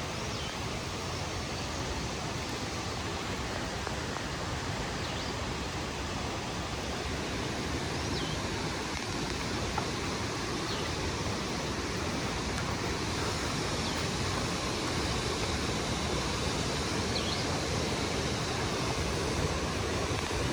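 Steady rushing of falling water, even and unbroken, with a few faint high chirps now and then.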